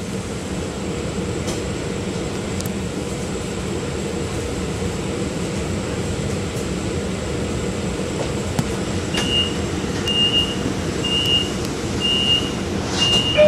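Steady low rumble inside a standing LIRR C3 bi-level coach hauled by a DE30AC diesel locomotive. From about nine seconds in, a short high beep sounds roughly once a second.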